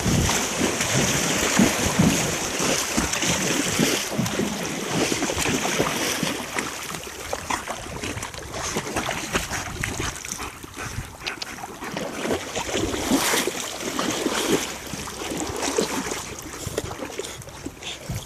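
Water splashing and sloshing irregularly, with wind buffeting the microphone.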